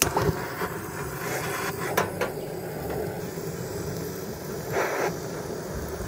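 Butane torch on a gas canister burning with a steady rushing hiss as its flame is held to firewood. A few sharp clicks come at the start and about two seconds in, and a brief louder burst about five seconds in.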